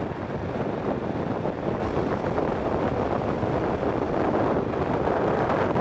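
Wind rushing over the microphone of a Kawasaki Z650 motorcycle at highway speed, a steady roar with the bike's engine and tyre noise underneath.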